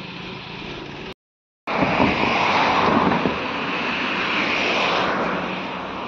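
A steady low hum that stops abruptly with a cut, then after a short silence a loud rushing noise that swells and slowly fades toward the end.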